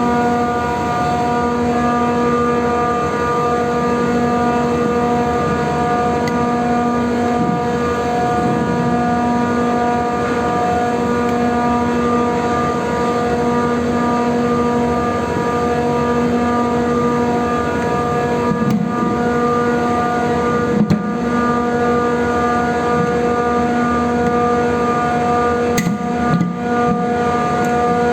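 Motor-driven fan wheel of an air-conditioning machine running at a constant speed: a steady hum with a strong, even whine, and a couple of brief knocks near the end.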